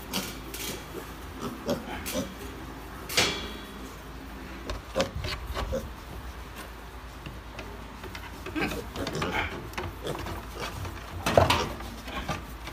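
A pen of roughly 20-day-old piglets grunting, with scattered knocks and rubbing as they jostle at the bars; the loudest sounds come about three seconds in and near the end.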